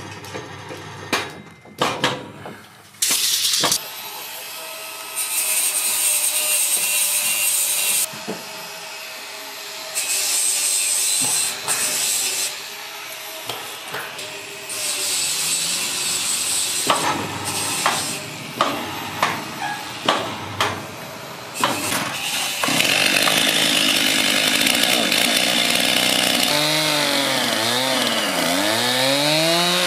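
Petrol chainsaw cutting into a squared timber beam in the last third, its engine pitch dipping and rising as the chain bites. Before that come stretches of sawing noise that start and stop, and a few sharp knocks.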